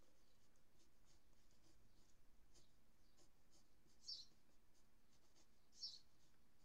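Faint scratching of a pencil drawing on paper. Two strokes stand out louder, about four and six seconds in.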